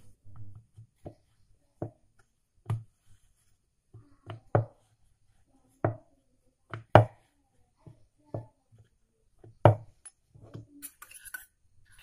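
Irregular knocks and taps of wood on wood as chapati dough is shaped on a wooden rolling board with a rolling pin, with two louder sharp knocks among them, and a brief scratchy rustle near the end.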